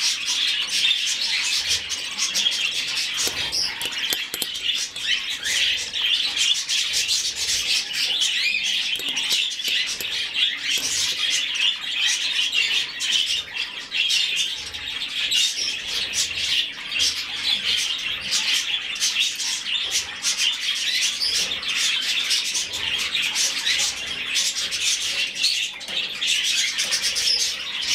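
Budgerigar chick chirping: a dense, continuous run of rapid high chirps that keeps on steadily without a break.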